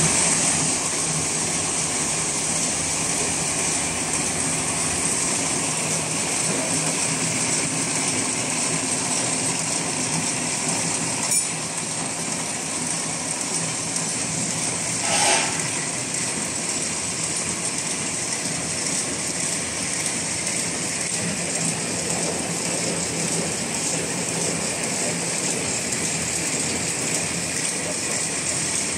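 Automatic napkin and toothpick packaging machine running: a steady, dense mechanical clatter and whir of its belts, rollers and feed mechanisms. There is a single sharp click over a third of the way in and a short, louder burst about halfway through.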